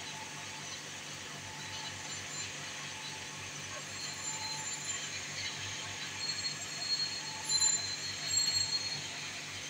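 Soap plodder machine running: its electric motor and screw drive make a steady hum with an even low pulse. From about four seconds in, high-pitched squeals come and go over it, loudest near the end.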